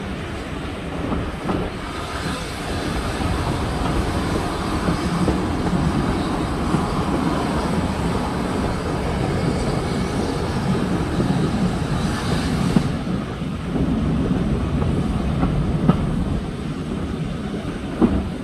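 Steam-hauled passenger train running along the line: a steady rumble of wheels on rails, with a few sharp clicks from the track.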